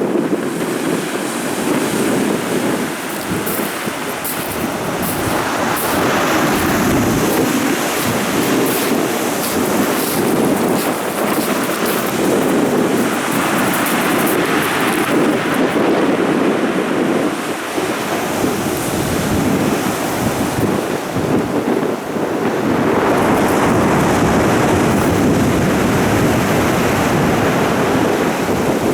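Stormy Black Sea surf breaking and washing on the shore, a dense rushing roar that swells several times, with wind buffeting the microphone.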